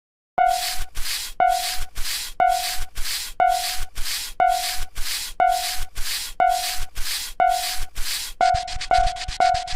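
Japanese railway level-crossing warning bell ringing its 'kan-kan' alarm, about two dings a second, each with a hissing edge. Near the end the ringing quickens to about three dings a second.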